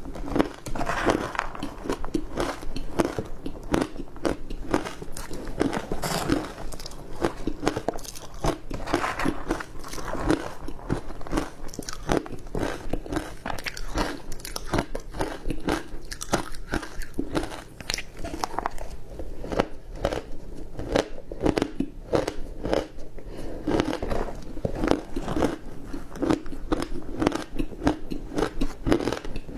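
Close-up crunching of ice dusted with matcha green tea powder, bitten and chewed in a steady run of sharp, irregular crunches several times a second.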